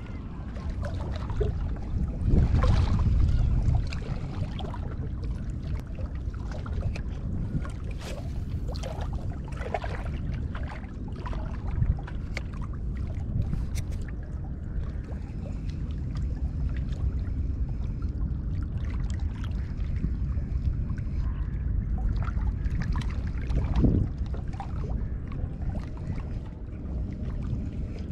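Wind rumbling on the microphone and water washing against the breakwater rocks, with scattered clicks and knocks from handling the rod and reel, and a thump near the end.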